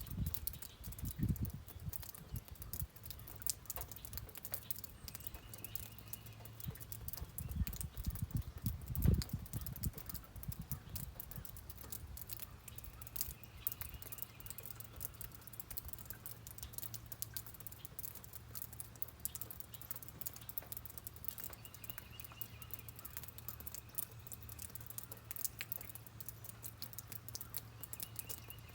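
Rain pattering as a dense stream of fine drop ticks, with a faint short trill about every eight seconds. A few low thumps fall in the first ten seconds.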